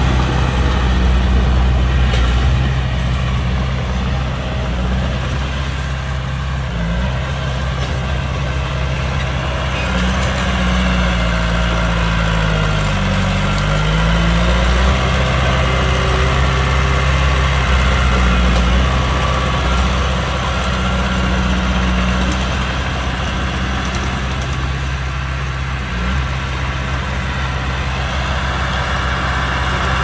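Heavy diesel engine of earthmoving machinery running steadily at a low, rumbling pitch; around the middle the engine speed sags and then picks back up.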